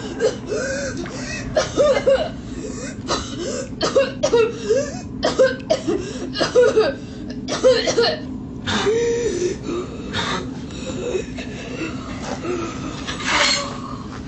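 Teenage boys coughing in short bursts, many times over the first eight seconds and more sparsely after, with a louder burst near the end, over a steady low hum.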